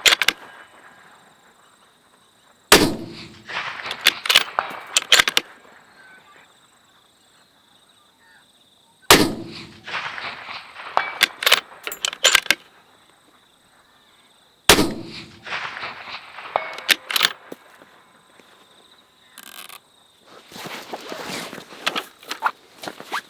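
.223 rifle fired three times, several seconds apart. Each shot is followed by a couple of seconds of sharp metallic clicks and clangs. A further burst of clicks comes near the end.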